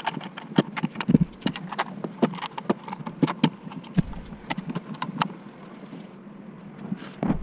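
Parallel bar clamps being set and tightened on a glued-up wooden tabletop: a rapid, irregular run of clicks and knocks from the metal bars, jaws and screw handles, thinning out after about five seconds.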